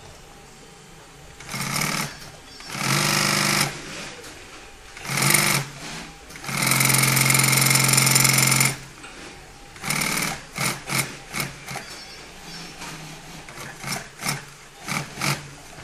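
Pfaff industrial sewing machine stitching in start-stop runs, mostly about a second each with one longer run of about two seconds, then a string of very short bursts of a few stitches at a time in the second half.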